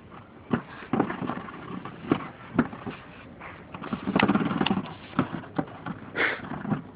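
Plastic stool knocking and tapping: a toddler pushing it and patting its top. The sharp knocks come irregularly, about two a second, with a louder, busier stretch a little past the middle.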